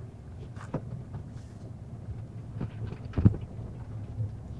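Steady low rumble of a car driving, heard from inside the cabin. Two short knocks stand out, the louder one about three seconds in.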